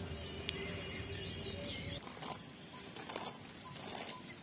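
Faint outdoor background with a few bird chirps. From about two seconds in come a few light clicks and knocks as dried jujubes (kul) are tipped from a plastic basket into a bowl.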